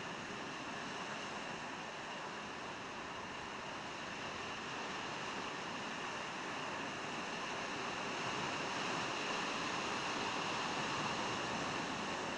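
Sea surf washing onto a rocky shore, a steady rushing hiss that swells a little after the middle.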